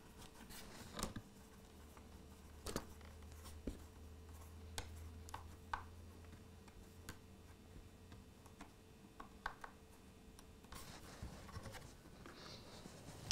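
Small screwdriver tightening the screws of a plastic screw terminal block onto ferruled wires: faint clicks and short scrapes of metal on plastic, scattered irregularly.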